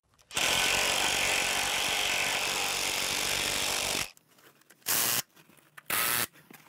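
Cordless drill driving a bolt home to tighten a metal window frame against a foundation wall: one steady run of about four seconds, then two short bursts about a second apart.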